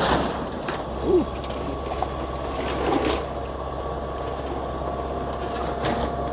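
Excavator running steadily while demolishing a building, with a hydraulic-sounding whine over the engine and sharp cracks and crunches of the structure breaking at the start, about three seconds in and near the end.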